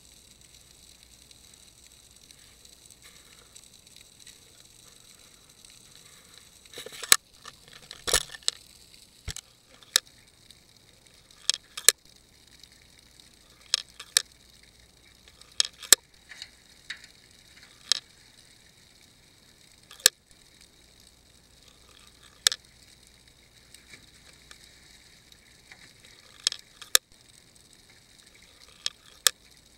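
Sound picked up underwater by a submerged fishing camera: a faint steady hiss, then from about seven seconds in, sharp clicks every second or two, some in quick clusters.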